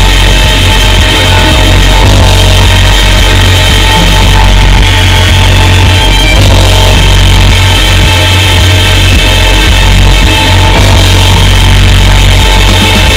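Loud background music.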